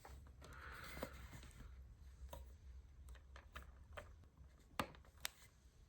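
Faint handling clicks and rustles of small plastic e-bike wiring connectors being fitted together, with two sharper clicks near the end.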